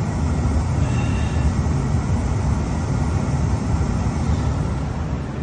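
45-year-old Rheem gas furnace running hot, its blower and burners making a steady low rumbling noise that eases slightly near the end.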